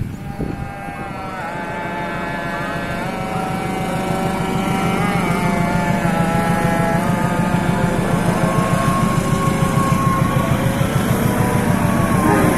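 GE diesel-electric locomotive approaching with a passenger train. The engine throbs under a steady whine, and both grow louder as it nears.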